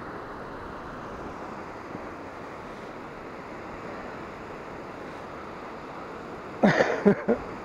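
A steady rushing noise, then a person's voice speaking briefly about a second before the end.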